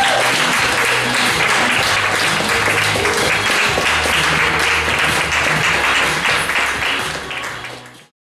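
Audience applauding, with music and a low bass line over it; both cut off suddenly near the end.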